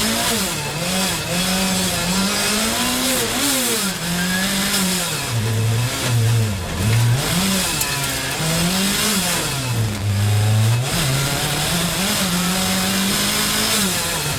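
Rally car engine revving hard, its pitch climbing and then dropping back again and again as the car is driven through the gears.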